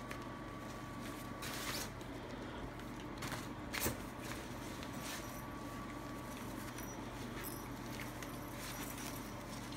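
Nylon pop-up play tunnel rustling as a Maltese puppy climbs over it: a few brief crinkles and taps, the sharpest about four seconds in, over a steady low hum.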